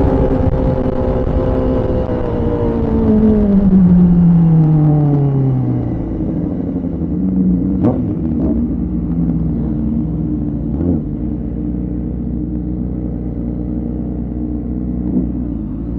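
Kawasaki ZX-4RR's inline-four engine running steadily, then falling smoothly in pitch for about three seconds as the revs drop, and settling into a low, steady run.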